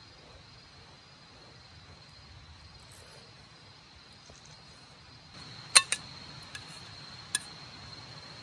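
Crickets chirping in a steady high trill. A little past halfway, a few sharp clinks of metal chopsticks against a metal bowl.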